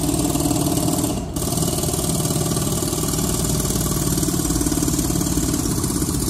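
Pneumatic jackhammer pounding steadily with fast, even blows, heard from inside a car, with a brief break about a second in.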